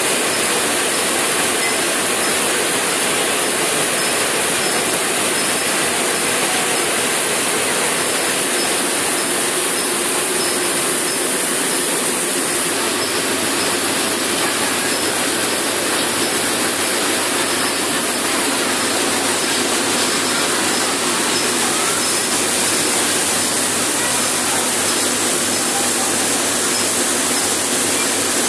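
Seed processing plant machinery running steadily: belt-driven seed cleaning machines with seed grain pouring through them, a loud, even mechanical noise with a strong hiss.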